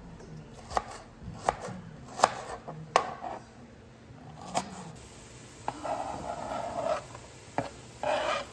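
Chef's knife slicing red onion on a plastic cutting board: a sharp knock of the blade on the board every second or so. Near the end, a longer rustling scrape as the sliced onion is pushed off the board into the frying pan.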